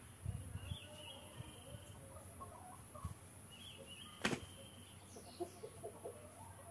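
Chickens clucking faintly, with a single sharp click a little past the middle.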